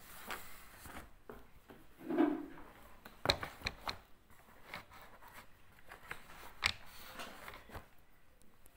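Whiteboard marker scratching across a whiteboard in short strokes, with sharp taps a little over three seconds in and again near seven seconds. A brief low sound about two seconds in is the loudest moment.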